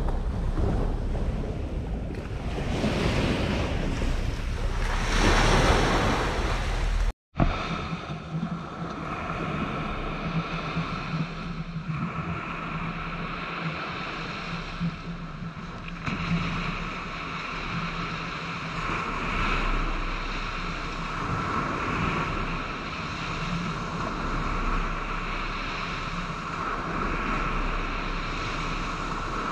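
Wind rushing over the microphone outdoors, swelling and easing. It cuts out for an instant about seven seconds in, then goes on as a steadier rush with a faint even hum.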